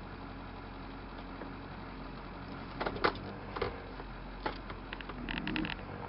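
Pickup truck engine running steadily at low speed, heard from inside the cab, with a few sharp knocks and clicks about three seconds in and a brief rattle near the end.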